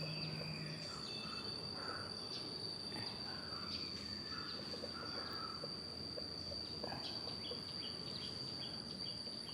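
Field insects such as crickets droning in one unbroken high note, with scattered short bird chirps over it.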